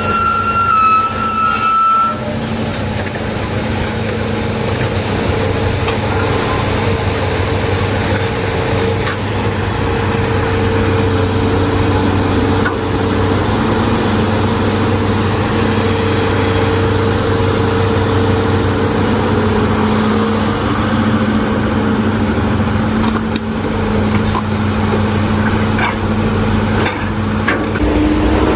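Heavy diesel engine running steadily at a constant speed, with a thin high whine that stops about two seconds in.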